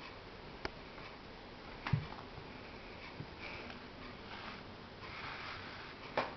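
A cat sniffing close up in short breathy puffs, with a light knock about two seconds in and a few sharp clicks.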